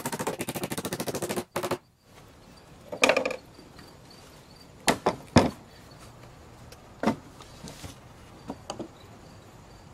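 Wooden lawn chair parts knocking and being set down on a sawhorse work table: a handful of separate hollow wooden knocks and thumps, the two sharpest about five seconds in. It opens with a rapid rattle of clicks that cuts off abruptly after about a second and a half.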